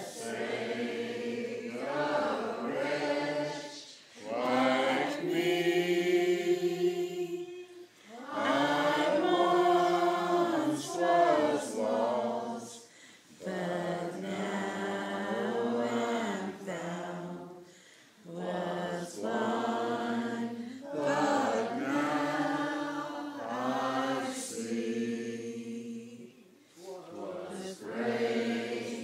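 A church choir singing in sustained, held phrases, with short breaks between the lines.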